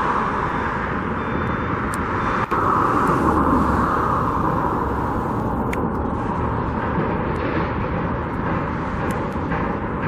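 Road traffic going by, with one vehicle passing close about three seconds in, its pitch falling as it goes.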